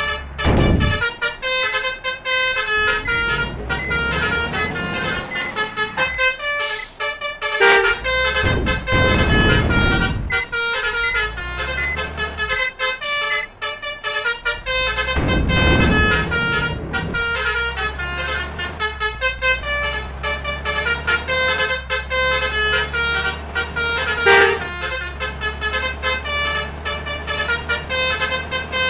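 Multi-tone basuri (telolet) bus horns playing quick melodic tunes over and over, over the steady run of heavy vehicle engines. Three times the rush of a passing vehicle swells up, about a second in, around eight to ten seconds in, and around fifteen seconds in.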